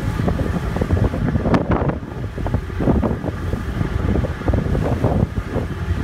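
Wind buffeting the microphone on the open deck of a moving ferry, rising and falling in gusts, with the low rush of the boat's engine and water underneath.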